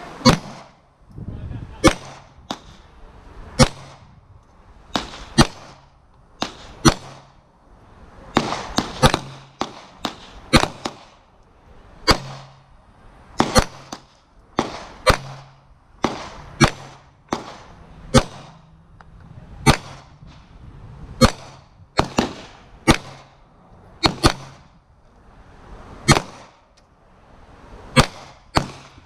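Glock 19X 9mm pistol firing a long string of single shots, roughly one a second, some in quick pairs.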